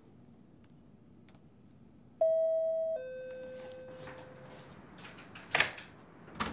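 Two-note "ding-dong" doorbell chime about two seconds in, a higher note followed by a lower one that rings out and fades. A few sharp clicks and knocks follow near the end.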